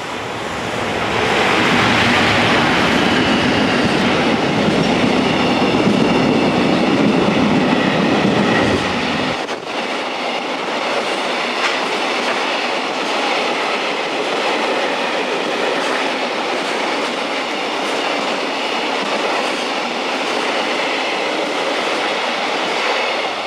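JR Freight electric freight train passing through the station: the EF210 locomotives go by loud and deep for the first nine seconds or so. Then the low rumble drops away suddenly, and a long run of container wagons rolls past with a steady clickety-clack of wheels on the rails.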